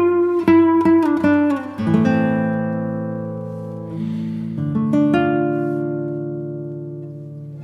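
Background music on acoustic guitar: a run of quick plucked notes, then two long ringing chords that slowly die away.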